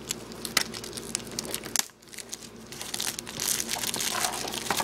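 Plastic shrink-wrap being picked at, torn and peeled off a DVD case, crackling and crinkling. It stops briefly about two seconds in, then the crinkling comes back louder and busier.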